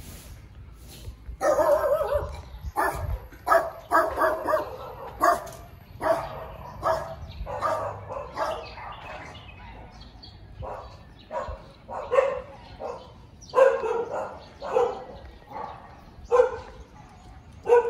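A dog barking repeatedly: many short, loud barks in irregular runs, starting about a second and a half in.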